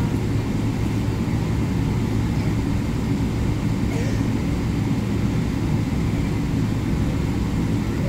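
Steady low rumble of an airliner heard from inside the cabin, its engines and rolling airframe running as the plane moves along the runway.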